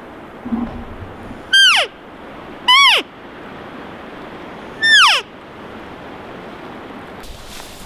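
Three cow-elk mews, each a short high whine that falls steeply in pitch, the first two close together and the third about two seconds later.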